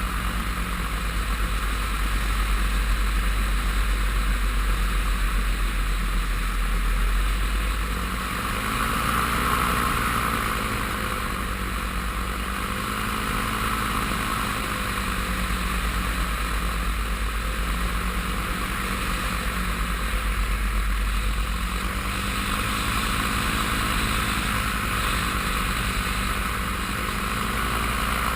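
Paramotor engine and propeller running steadily in flight, the pitch rising and falling gently every few seconds.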